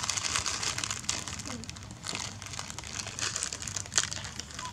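Plastic snack packet crinkling and crackling as it is handled in the hands, with a sharp crackle about four seconds in.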